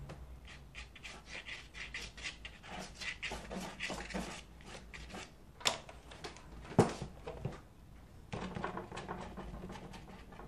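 Brush dabbing and scratching on watercolour paper in quick short strokes, about four or five a second, in two runs, with two sharp knocks in the pause between them, the second the loudest.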